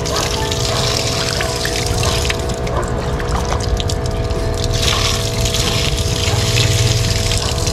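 Water running from a hose onto a fine-mesh daphnia net and splashing onto wet ground, a steady rushing spray as the catch is rinsed down the net.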